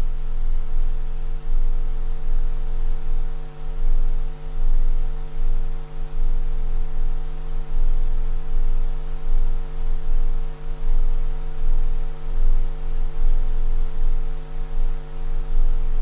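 Steady electrical hum on the broadcast audio: a low buzz with a stack of even overtones and a deep bottom that wavers in level, typical of mains hum on the feed.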